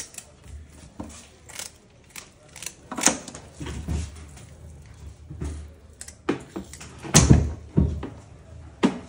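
A whole fish being scaled and trimmed with kitchen scissors over a sink: a run of short rasping scrapes and wet knocks. The two loudest come about three and seven seconds in.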